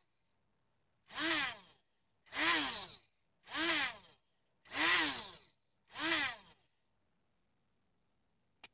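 Small DC gear motors of a hobby robot arm, driven from a Raspberry Pi motor-driver board, whining in five short runs of under a second each, about one every second and a bit. Each run's whine rises in pitch as the motor spins up and falls as it stops. A single short click comes near the end.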